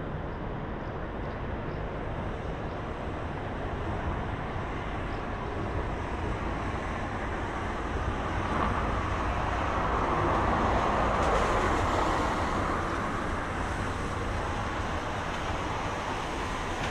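Steady city traffic hum along a riverbank, with one vehicle passing that swells up and fades away over several seconds. It is loudest about two-thirds of the way through.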